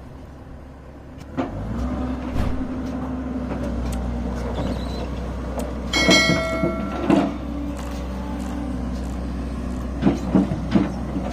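Komatsu hydraulic excavator's diesel engine running steadily, picking up about a second and a half in. A brief high squeal comes about halfway through, and there are several knocks near the end as the bucket works.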